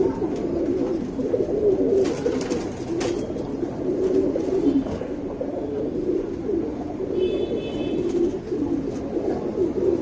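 Domestic pigeons cooing steadily, a low continuous coo that wavers in pitch throughout.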